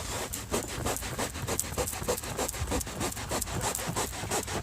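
Cloth scrubbing back and forth on a car seat cover to wipe out a stain with windshield washer fluid: a quick, even rubbing, several strokes a second.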